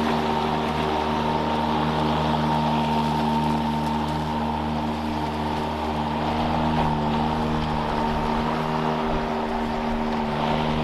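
Toro 60V Flex Force cordless electric lawn mower running steadily as it is pushed through grass: an even motor-and-blade hum with a steady higher whine over it and the rush of the cut.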